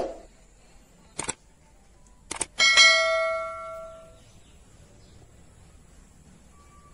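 Subscribe-button sound effect: a sharp pop, a click, a second click, then a bell chime that rings out and fades over about a second and a half.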